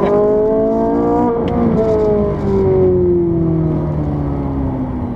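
Ferrari 458 Italia's naturally aspirated V8, heard from inside the cabin. The revs climb slightly for about a second, then fall smoothly and steadily over the next few seconds as the car slows into a corner.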